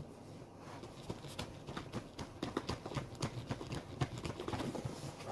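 Rapid rustling, scraping and tapping of paperback books against their box set as they are worked at by hand; the books are packed tightly and hard to pull out. It starts about a second in.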